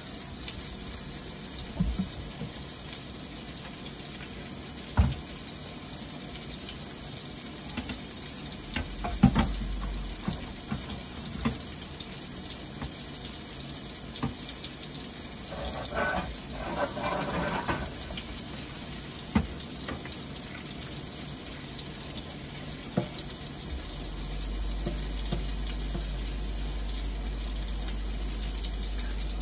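Steak frying in butter in a Hexclad frying pan: a steady sizzle with a few sharp knocks. A low hum joins near the end.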